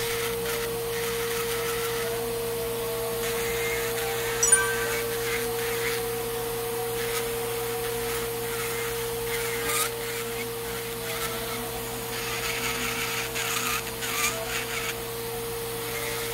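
Electric nail drill running with a steady whine as its bit grinds down a thick, fungus-infected toenail, with short scratchy rasps as the bit scrapes the nail.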